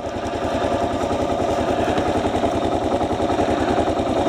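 Kawasaki KLR's single-cylinder engine running steadily with an even, rapid pulse, growing a little louder in the first second.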